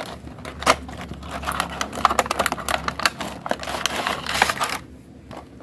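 Toy packaging being opened by hand: a busy run of crinkling, rustling and small sharp clicks that stops near the end.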